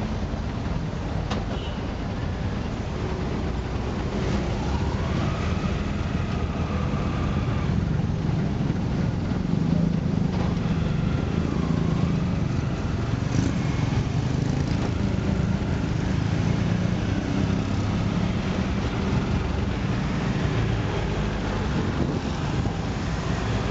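Bajaj auto-rickshaw engine running steadily, heard from inside the open cab, with its pitch rising and falling a few times as it creeps through traffic. Surrounding street traffic can be heard as well.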